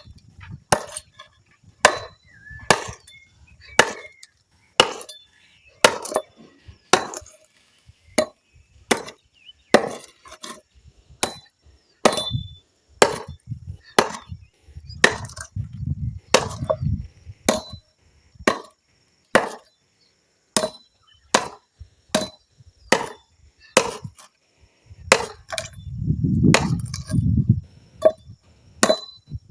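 Repeated chopping blows into wood, steady at about one a second, as a piece of wood is cut to shape.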